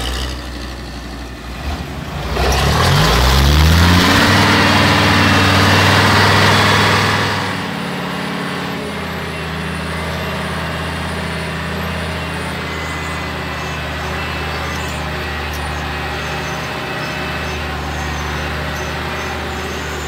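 Old logging truck's engine running. It revs up about two seconds in, and a loud rushing noise lies over it for about five seconds. Then the engine settles into a steady, quieter run.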